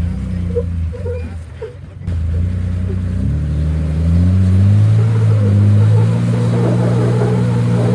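Modified Jeep TJ's engine revving hard under load as it climbs a steep rock ledge. The revs rise about three seconds in and then hold high and loud. The tyres scrabble on rock and dirt.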